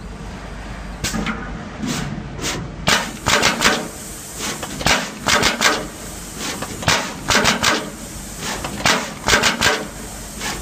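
Automatic through-hole insertion machine inserting radial-lead components into a circuit board, its head clacking sharply in quick irregular clusters of a few strokes a second over steady machine noise. The clacks start about a second in and come thicker from about three seconds in.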